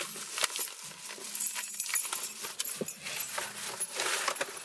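Thin plastic shopping bag rustling and crinkling in irregular crackles as a hand opens it and rummages through the packaged snacks inside.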